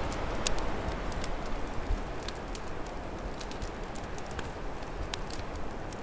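Open wood fire crackling, with scattered sharp pops, over a low, steady rumble of winter wind.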